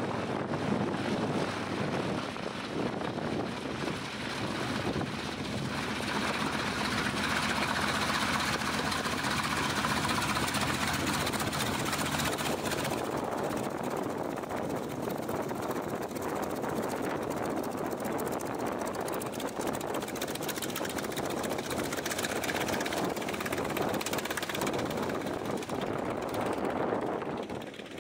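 A WWII fighter's radial engine running steadily at low power as the plane taxis, its propeller turning.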